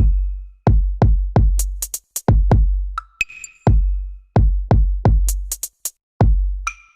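Electronic background music: a drum-machine beat of deep, booming bass-drum hits with sharp hi-hat ticks and short synth notes.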